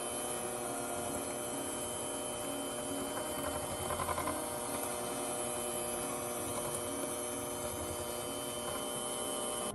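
Electric hand mixer running at a steady speed, its motor humming and its beaters whipping creamed butter, sugar and egg in a glass bowl.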